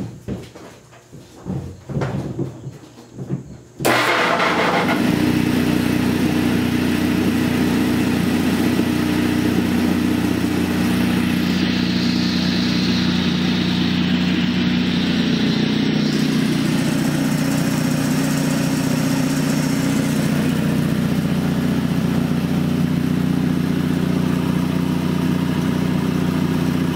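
A 1946 7.5 hp Wagner repulsion-start induction-run motor starts a rebuilt 1968 Quincy Model 230 twin-cylinder air compressor about four seconds in, after a few faint knocks. It comes up to speed at once and runs steadily, pumping air into the tank, with a hiss joining for a few seconds in the middle.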